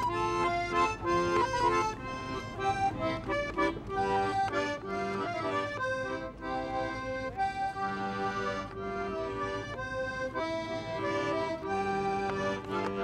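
Button accordion playing a tune: a moving melody over held chord notes.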